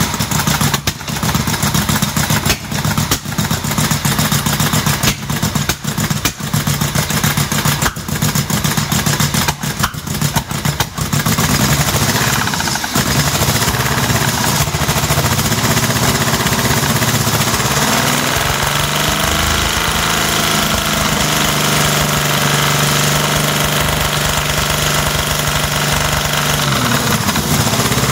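BMW E36 engine converted to rotary valves, running with its intake manifold removed. Just after starting it runs rough and uneven, stumbling for about the first ten seconds, then settles into a steadier idle with one brief rise in revs and back down about two-thirds through.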